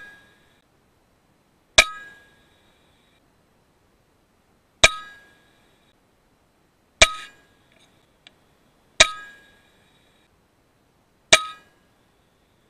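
FX Impact M3 .22 PCP air rifle firing five shots a few seconds apart, each a sharp crack with a short metallic ring that dies away within about a second.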